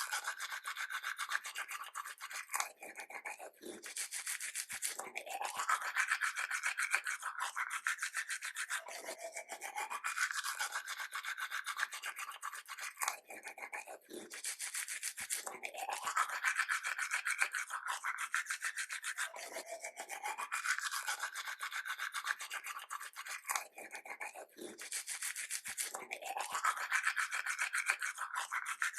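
Toothbrush brushing teeth in quick back-and-forth scrubbing strokes, with a short break about every five seconds before the next run of strokes.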